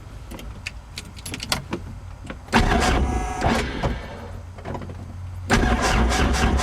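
Helicopter's electric starter cranking the engine on a run-down battery: a whine with a low hum starts abruptly about two and a half seconds in and fades after about a second and a half. A second, louder cranking attempt starts near the end. Light switch clicks come before the first attempt.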